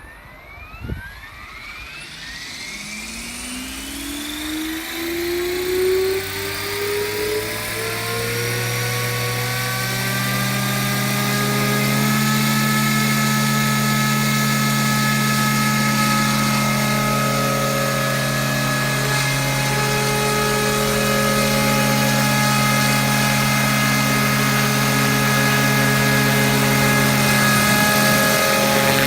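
Radio-controlled scale AS350 helicopter with a three-blade main rotor head spooling up: a short knock about a second in, then a whine that rises in pitch over about ten seconds and settles into a steady hum of motor and rotors at flying speed.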